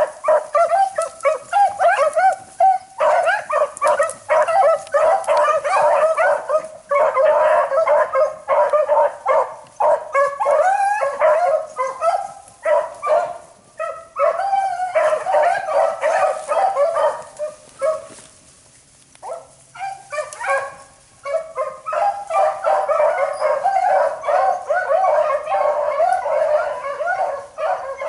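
Pack of beagles baying on a rabbit's trail, several voices overlapping almost without break. They fall nearly quiet briefly about two-thirds of the way through, then open up again.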